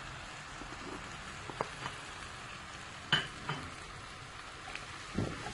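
Chopped vegetables sizzling in oil in a frying pan as they are stirred, with a few sharp clicks of the spoon against the pan, the loudest about three seconds in.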